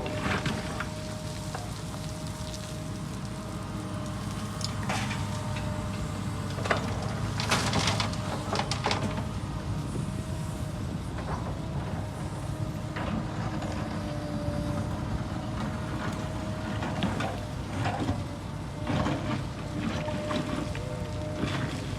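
Heavy diesel construction machinery running steadily with a constant whine, punctuated by irregular metallic clanks and scrapes.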